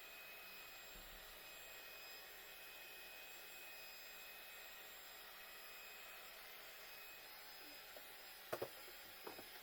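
Near silence: a faint, steady hiss, then a few light knocks near the end.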